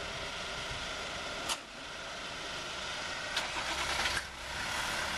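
Car engine running, heard from inside the cabin, with a sharp click about a second and a half in and a few more clicks later.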